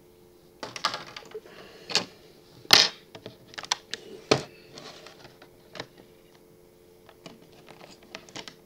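Irregular clicks and knocks of hard plastic and small parts being handled on an opened laptop while a RAM module is swapped. The loudest few come in the first half and are followed by lighter ticks.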